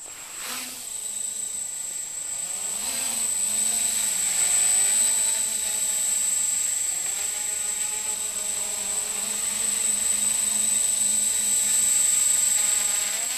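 Mini quadcopter's four small electric motors and propellers spinning up and hovering, starting abruptly: a steady high-pitched whine over a lower buzz whose pitch wavers up and down as the throttle is worked.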